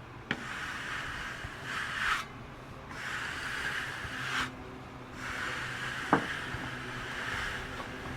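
Repeated rubbing strokes on freshly sawn wood, about one every second and a half, over the steady low hum of an idling engine. A single sharp knock about six seconds in.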